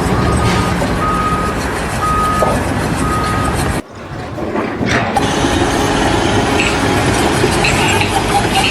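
A heavy vehicle's engine running while its reversing alarm sounds a few evenly spaced beeps. About four seconds in, the sound cuts abruptly to a different steady noisy machine or site sound.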